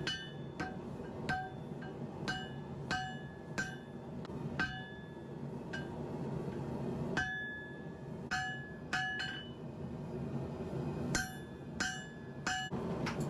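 Hammer blows on a hot Damascus billet over an anvil: about fifteen strikes at roughly one a second, each with a short metallic ring, pausing briefly near the end. This is the billet being forged down.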